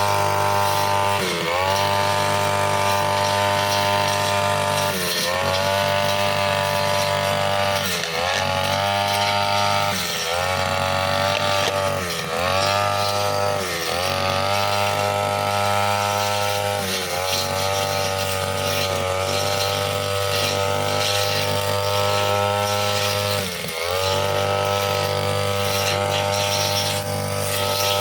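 Two-stroke brushcutter fitted with a cutting blade, running at high revs. Its pitch dips briefly and climbs back every few seconds, about nine times, as the blade bites into the growth or the throttle eases.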